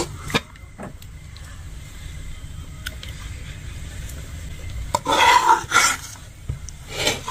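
Steel ladle scraping thick fish curry out of a metal kadai and knocking against steel bowls: a few light clinks in the first second, then louder scrapes about five and six seconds in and again near the end.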